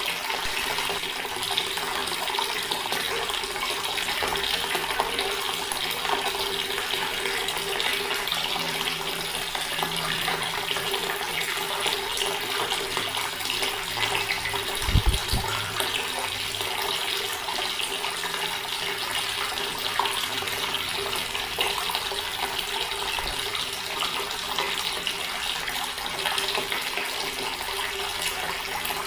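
Water running steadily from a tap and splashing, an even hiss with a faint steady hum under it. A brief low thump about halfway through.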